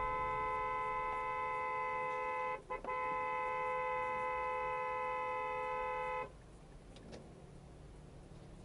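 Car horn held in a long blast, two notes sounding together, broken by a brief gap about two and a half seconds in and cut off about six seconds in.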